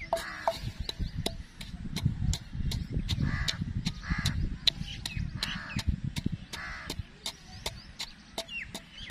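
Crows cawing several times, over a fast, steady series of sharp clicks.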